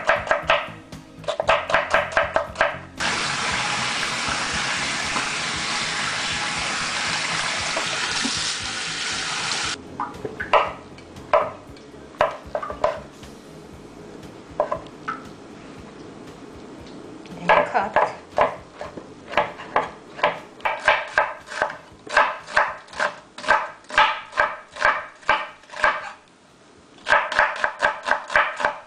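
Kitchen knife chopping raw potato into thin julienne strips on a cutting board: runs of quick, even knocks, about two to three a second. From about three seconds in to about ten they give way to a steady hiss, followed by a stretch of scattered light clicks.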